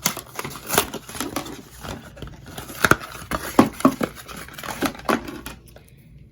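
Packaging crinkling and crackling in irregular bursts with sharp clicks as a 50 ft network cable is handled and unpacked; it dies down in the last half second or so.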